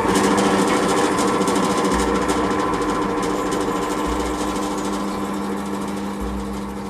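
Benchtop drill press running, its twist bit boring through a plywood fence, slowly growing quieter.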